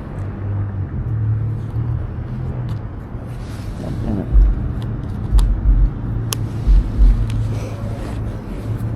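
Husqvarna Svartpilen 401's single-cylinder engine running at low speed, a steady low hum, with several deep thumps from about four seconds in.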